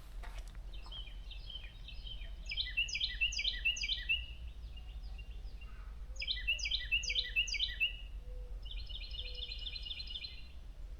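A songbird singing: two phrases of quick, repeated down-slurred notes, then a faster, even trill near the end.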